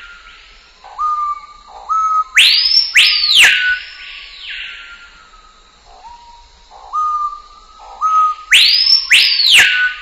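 A repeating sequence of clear whistles. Short notes slide up into a held tone, then loud whistles sweep up and fall back down, with a few sharp clicks among them. The same sequence starts again about six seconds later.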